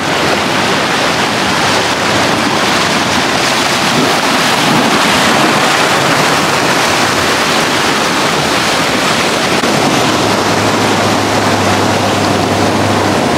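Ocean surf breaking and washing over shoreline rocks: a steady, loud rush of water.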